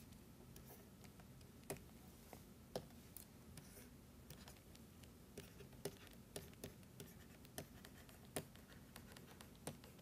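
Faint taps and scratches of a stylus writing on a digital pen tablet: irregular light ticks, a few of them sharper, over a low steady room hum.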